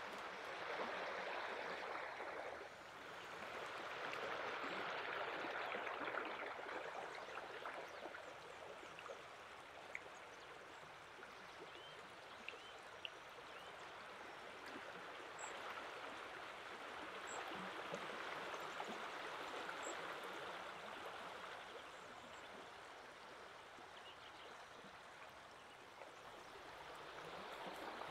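A shallow stream running over pebbles and stones: a steady rushing of water that swells and eases a few times.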